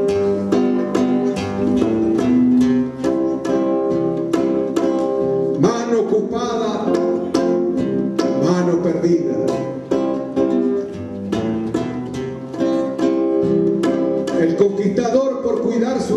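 Music played on a strummed string instrument in a steady rhythm.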